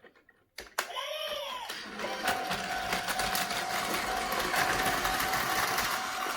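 Two clicks, then battery-powered Tomy Plarail toy trains running on plastic track: a steady whir of their small electric motors and gears with a constant whine, starting about two seconds in.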